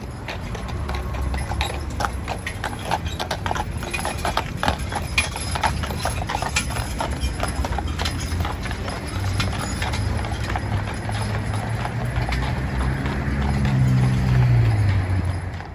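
Hooves of a pair of horses pulling a carriage, clip-clopping at a walk on the paved street. Near the end a passing vehicle's low hum swells and drops in pitch.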